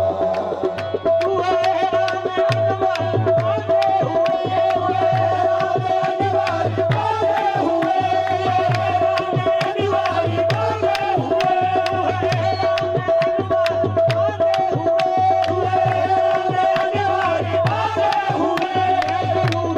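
Qawwali music: tabla playing a steady, driving rhythm under a held note, with voices singing over it.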